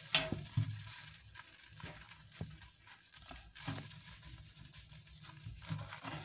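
Faint rubbing and scuffing of a small green scrubber wiped into the corners of a microwave oven's enamelled interior, with scattered soft clicks.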